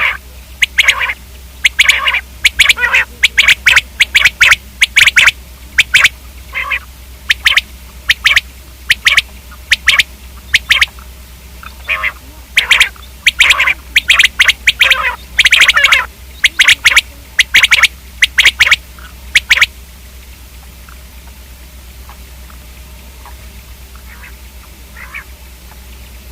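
Common quail calling: a rapid series of short, sharp, loud calls that stops about three-quarters of the way through, leaving only a faint call or two over a low hum.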